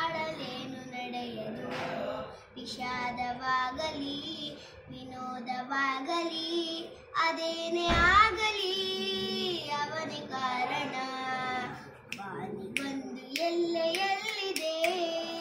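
A young girl singing a Kannada film song alone with no instruments, holding long notes with short breaths between phrases. A brief low thump comes about halfway through.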